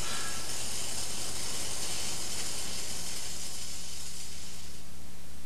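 Gas metal arc (MIG) welding arc on aluminum hissing steadily, fading out near the end, over a steady low hum.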